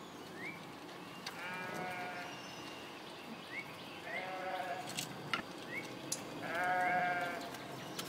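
Leather lace squeaking as it is twisted and pulled tight in a braid: three drawn-out squeaks about two seconds apart, with short high chirps and light clicks from handling the strands in between.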